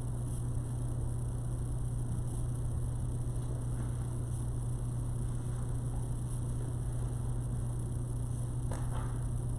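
Steady low electrical hum over faint background noise, with a brief faint rustle near the end.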